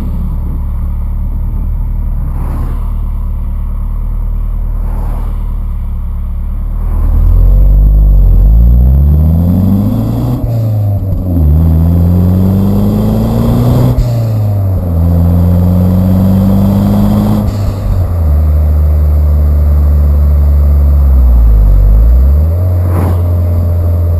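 Nissan 200SX S13's stock CA18DET 1.8-litre turbocharged four-cylinder idling, then revved three times, each rev rising and falling back, before settling to a steady idle again near the end. The revs stay at about 4000 rpm or below.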